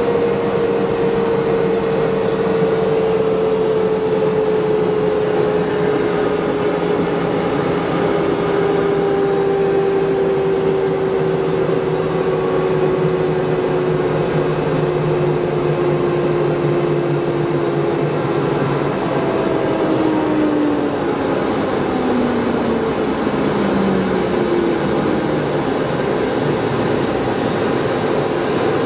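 Aérospatiale Gazelle helicopter's Astazou turboshaft and rotor running down on the ground after landing. A steady whine sinks slowly in pitch, then falls away faster about two-thirds of the way through, when a lower hum also stops, over loud continuing turbine and rotor noise.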